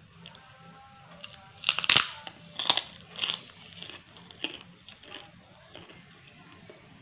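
Crunchy bites into kerupuk, a puffed Indonesian cracker, and chewing it: a cluster of loud crunches around two to three and a half seconds in, then a few softer crunches as it is chewed.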